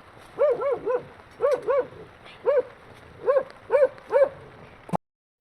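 A dog barking, about nine short yaps in quick groups of two or three. The sound cuts out abruptly near the end.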